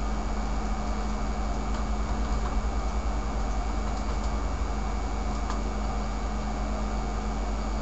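Steady background hum and hiss of the recording setup: a constant low electrical drone with a faint high whine over a fan-like noise, and a few faint clicks.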